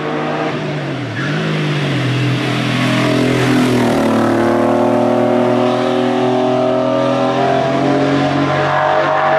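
Racing Porsche 911's air-cooled flat-six engine under hard acceleration as the car drives up and passes close by. The engine note dips briefly about a second in, then climbs and holds high while the sound grows louder.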